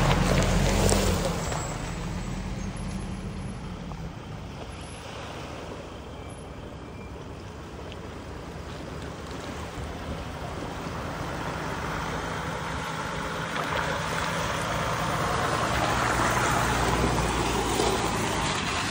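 Off-road 4x4 vehicle driving, engine and tyre noise. It is loud at first, drops after a second or two, then builds again towards the end.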